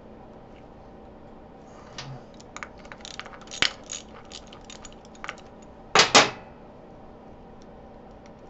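Light metal clinks of a half-inch wrench on the shift lever's bolt on a Harley Dyna's mid controls as the bolt is worked loose: an irregular run of small clicks from about two seconds in, then a louder double clink about six seconds in.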